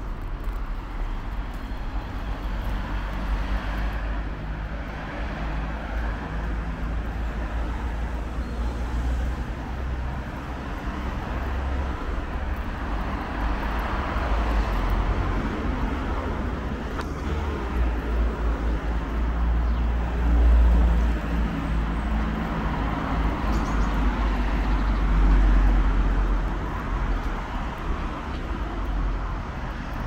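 Street ambience of road traffic: a steady hum of cars on a nearby road with a low rumble. It swells louder twice in the second half as vehicles pass.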